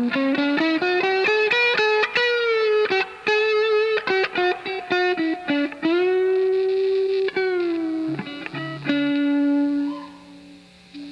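Electric guitar playing a lead solo: quick runs of single notes, then long sustained notes with vibrato, a note bent downward about seven seconds in, and a held note that fades out near the end.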